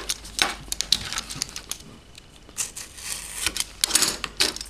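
Plastic retail packaging of Kingston RAM modules being handled and opened: irregular crackling and sharp plastic clicks in several short bunches.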